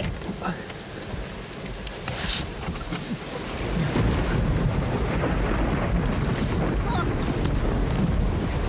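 Heavy rain and water noise around a car sinking in a river, with a few short splashes. A deep rumble swells about four seconds in and stays loud.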